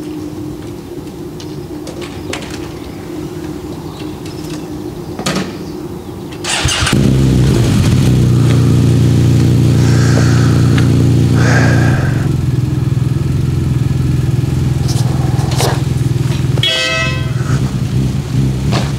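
A motorcycle engine starts about seven seconds in and then idles steadily. Near the end there is a short honk of its horn.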